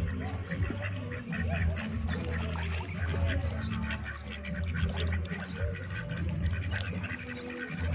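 A flock of domestic ducks, mallard-coloured and white, quacking over and over in many short, overlapping calls, over a steady low rumble.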